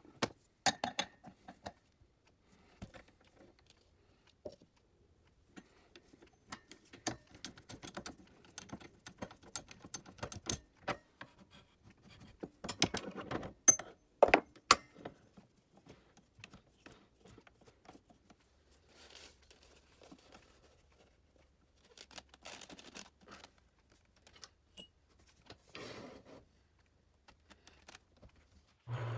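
Irregular clicks, light knocks and metallic clinks from handling a wood lathe's metal chuck, a jaw plate with rubber bumpers and a wooden vase, with the lathe switched off. The sounds are busiest around the middle.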